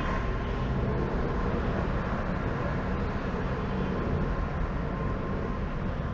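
Steady low rumble of a Hyundai taxi's engine and tyres heard from inside the cabin while it moves slowly through city traffic.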